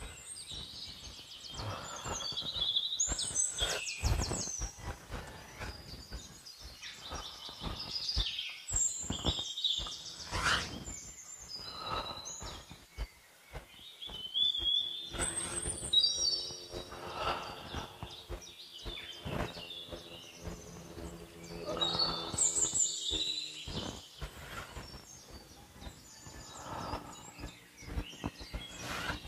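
Several birds chirping and calling, with short repeated notes and quick whistled sweeps, and a few sharp clicks or rustles between them.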